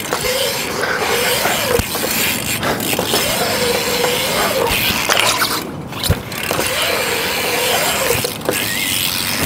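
BMX bike tyres rolling over a concrete skatepark bowl, a steady rushing hum whose pitch rises and falls several times as the rider's speed changes through the transitions, with two sharp knocks, about two and six seconds in, from the bike striking the concrete or coping.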